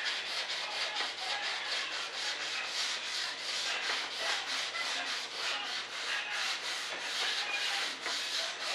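Hand sanding with a small sanding block on a model jet's fuselage: quick, even back-and-forth strokes of sandpaper rubbing over the filled spots.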